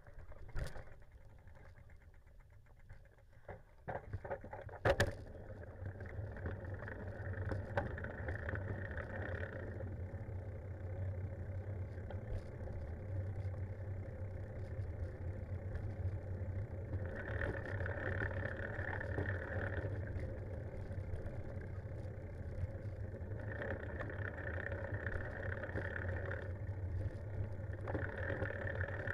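Steady rumble of a bicycle being ridden, tyre and wind noise picked up by a camera mounted on the bike. It sets in about five seconds in after a sharp knock and then runs on evenly.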